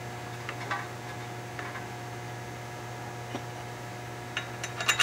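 Steel flywheel bolts being placed and started by hand into the crankshaft flange: a few light metallic clicks, then a quick cluster of clicks near the end, over a steady low hum.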